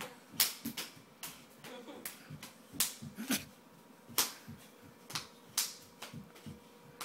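Hand claps and slaps, sharp and irregular, about a dozen spread over several seconds, with a faint voice murmuring between them.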